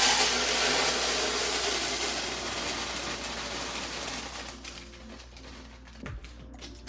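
Dry food being poured into a storage container: a steady rattling rush that gradually thins out and tapers off, with a few light knocks near the end.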